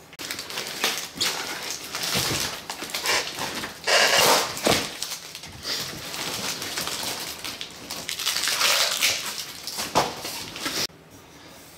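Plastic wrap and cardboard packing crinkling and rustling as it is handled and pulled off a dirt bike frame, loudest about four seconds in, stopping abruptly near the end.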